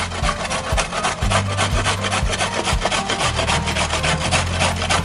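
Carrots being grated by hand on a metal box grater: a steady run of rasping strokes, about four a second.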